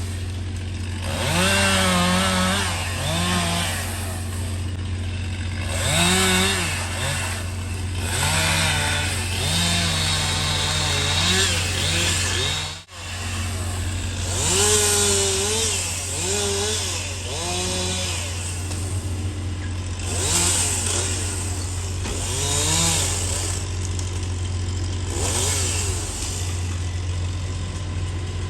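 Gas chainsaw cutting wood, its engine revving up and bogging down again and again as it bites into the cuts, over a steady low engine hum.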